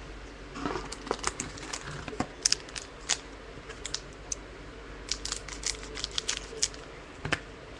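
Trading cards being handled and flipped through: a run of short, irregular rustles and clicks of card stock against card.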